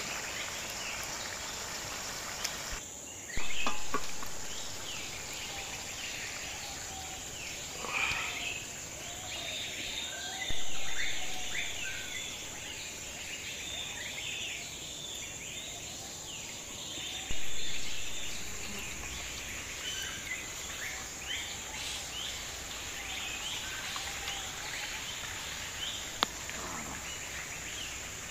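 Outdoor forest ambience: a steady high insect drone with many short bird chirps scattered through it. Three times a sudden louder sound cuts in and fades over a second or two.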